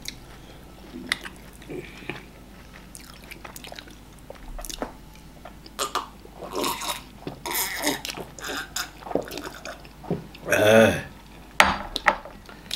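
Wet, close-up eating sounds of amala and slimy ogbono soup eaten by hand: chewing, lip smacking and sucking, with scattered short clicks. A brief vocal sound, the loudest moment, comes near the end.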